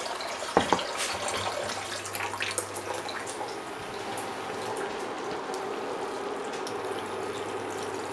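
Pan of rice and vegetable curry simmering on an induction hob, with a few knocks of handling in the first few seconds; near the end, water is poured into the pan from a jug to finish cooking rice that is still hard.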